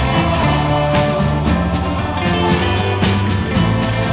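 Background music: a rock track with guitar and a steady beat.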